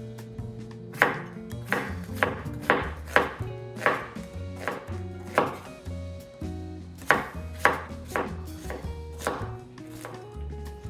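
Knife chopping food on a cutting board in quick, sharp strokes, about two a second, with a brief pause a little past the middle.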